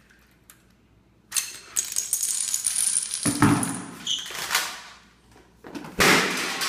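A home-made Rube Goldberg chain-reaction machine running: a long run of clattering and small knocks as dominoes and other small objects tumble and hit hard surfaces, then a single loud knock about six seconds in.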